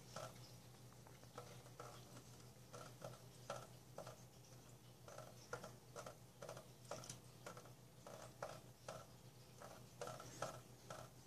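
Water dripping from a kitchen faucet onto a wet stainless steel sink: faint soft ticks about twice a second.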